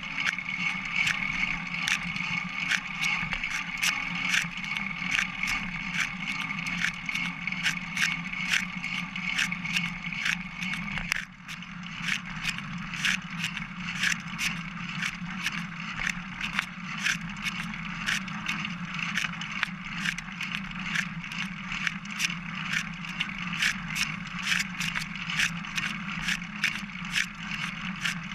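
Single-speed bicycle being ridden, picked up through a camera mounted on its top tube: a steady rolling hum with regular sharp clicks, about two to three a second, coming a little quicker after a brief dip about a third of the way through. A faint steady high tone stops at that dip.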